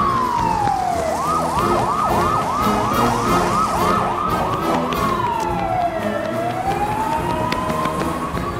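Police siren sounding: a slow wail falling in pitch, then a run of about ten quick rising yelps, then another slow fall about five seconds in and a slow rise toward the end.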